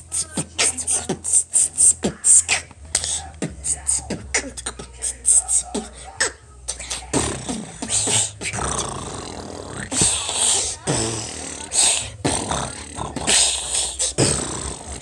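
A child beatboxing: quick, sharp mouth-percussion pops and clicks with hissed hi-hat sounds.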